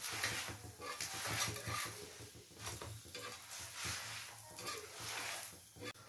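Spatula scraping and turning a flatbread on a hot tawa griddle in repeated irregular strokes, with a light sizzle underneath.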